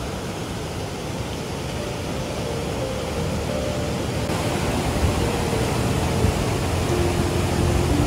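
Steady rush of a mountain river and waterfall, gradually growing louder.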